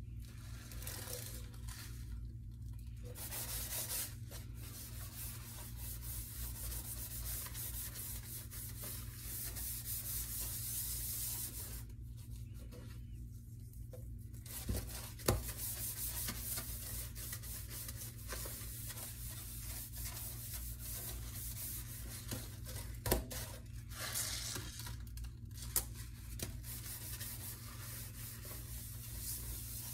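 A scrub sponge rubbing white cleaning powder over a stainless steel sink: a gritty scrubbing in long strokes. It stops briefly about twelve seconds in and again near twenty-four seconds, with a few sharp knocks in between.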